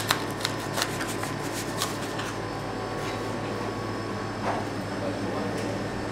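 Metal knife and fork cutting pizza in a cardboard delivery box: a quick run of clicks and scrapes for about two seconds, then a steady room hum.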